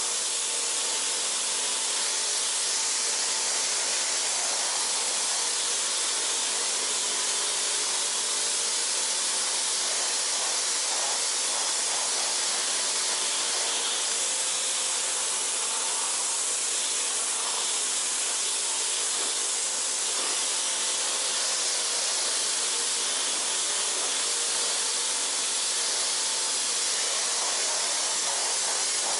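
Kärcher K2 Compact electric pressure washer spraying a jet of water onto a car: a steady, even hiss with the pump motor's faint hum underneath.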